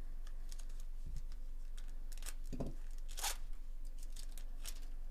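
Foil wrapper of a Bowman Chrome baseball card pack being torn open and crinkled: a run of small crackles and clicks, with a longer tear about three seconds in.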